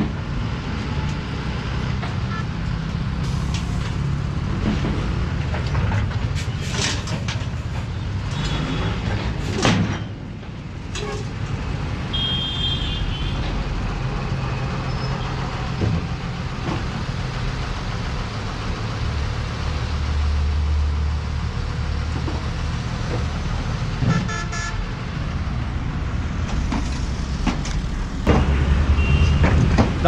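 Diesel engine of a tipper dump truck running steadily while it tips soil from its raised bed, with occasional knocks. A short horn toot sounds about 12 seconds in.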